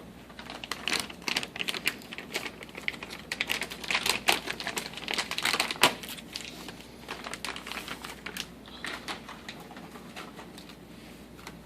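Bubble wrap crinkling and crackling as a toner cartridge is unwrapped and slid out of it: a dense run of small clicks that thins out over the last few seconds.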